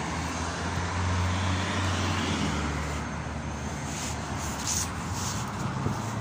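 Inside a BKM 321 trolleybus under way: steady rolling and road noise with a low hum, the hum strongest for the first two seconds or so and then easing.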